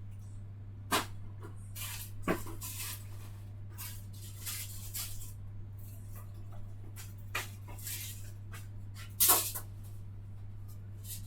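A steady low hum with a few scattered knocks and clatters, the loudest about nine seconds in.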